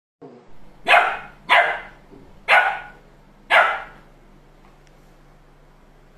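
A dog barking four times, sharp barks with the first two close together, then it stops for the last couple of seconds.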